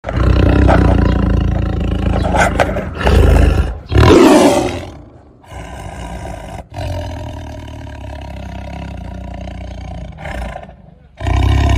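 A tiger roaring in repeated loud calls, the loudest about four seconds in, then quieter for a while before growing loud again near the end.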